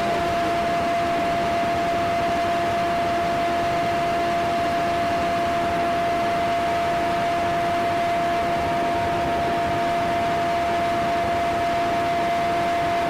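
Aircraft running steadily, heard on board: an even, loud engine rush with a constant high whine and a fainter lower hum, unchanging throughout.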